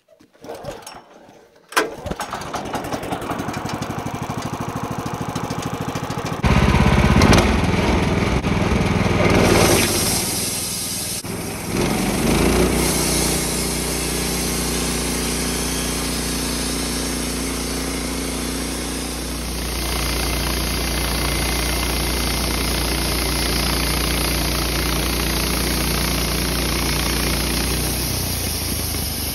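Wood-Mizer LT15 sawmill's gasoline engine cranking and catching about two seconds in, after three months unused. It then runs with a steady pulse at idle, revs up louder about six seconds in, and settles into a steady run at speed.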